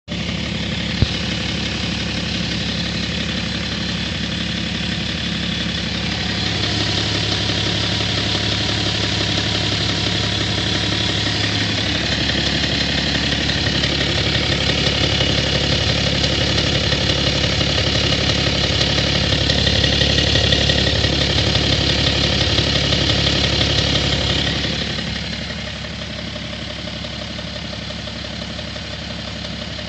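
BMW M57T2 straight-six diesel idling with an even, regular knock whose cause has not been found. There is a single sharp click about a second in, and the engine sound gets quieter about 25 seconds in.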